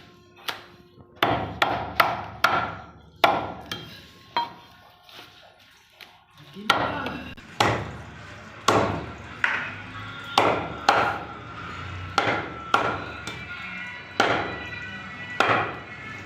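Butcher's cleaver chopping through beef on a chopping block: a string of sharp, heavy chops, irregular at roughly one or two a second, with a quieter spell around the middle before the chopping picks up again.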